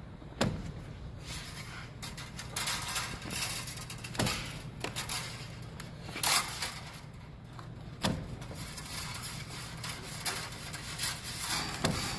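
Baling wire being slid through the channels of a baler's ram, metal scraping on metal, with several sharp knocks along the way.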